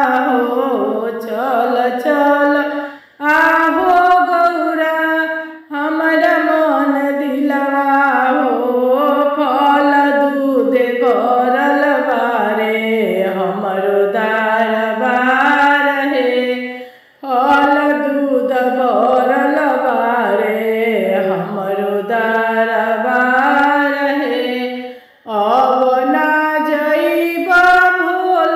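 A woman singing a Bhojpuri Shiv charcha devotional bhajan, unaccompanied, in long melodic phrases. She breaks off briefly for breath four times.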